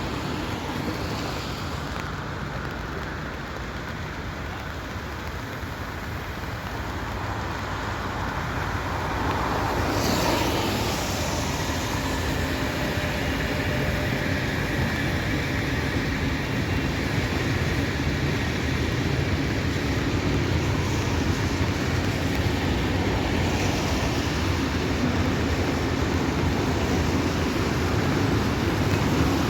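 Steady vehicle rumble and rushing noise that swells about ten seconds in and stays louder to the end.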